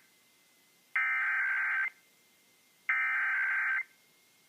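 Emergency Alert System SAME header: two identical bursts of warbling digital data tones, each just under a second long and about a second apart. They are the second and third repeats of the coded header that marks the start of a Required Monthly Test alert.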